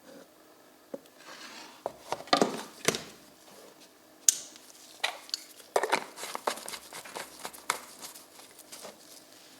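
Small metal parts clinking and clattering together in irregular knocks, several close together, as they are handled.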